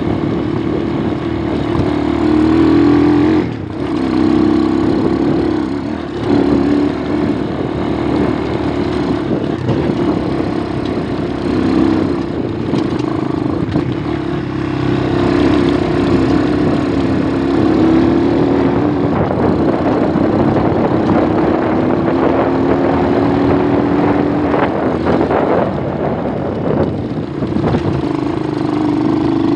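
Dirt bike engine running steadily as the motorcycle is ridden along a dirt road. The engine sound dips briefly twice in the first several seconds.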